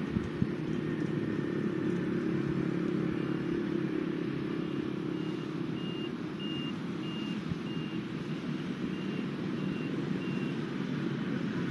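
A vehicle's low engine rumble with a reversing alarm beeping about twice a second, growing louder and then fading over several seconds.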